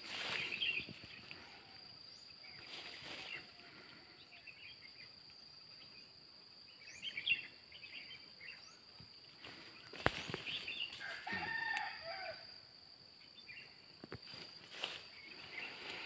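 Farmland ambience: small birds chirping now and then over a steady high insect whine, with a rooster crowing about eleven seconds in. A sharp knock comes about ten seconds in.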